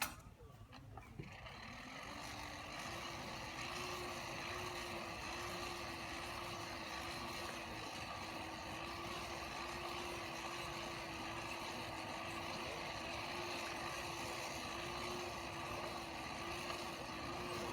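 A click, then a motor that spins up over about a second and runs steadily with a constant hum and a rushing noise.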